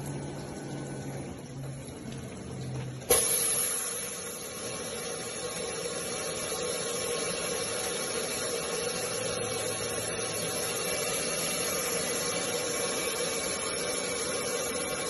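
5-axis CNC stone bridge saw running with a steady hiss and hum while its suction-cup head moves a stone slab. About three seconds in, a louder hiss with a steady mid-pitched tone starts suddenly and holds.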